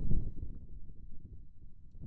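Wind buffeting the microphone: a low rumble that is strongest just at the start, then eases off.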